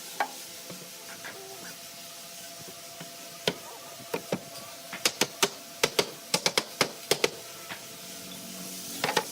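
A run of short, sharp knocks and clicks from carpentry work, a few at first and then a quick cluster of about a dozen from about five seconds in, over a steady hiss.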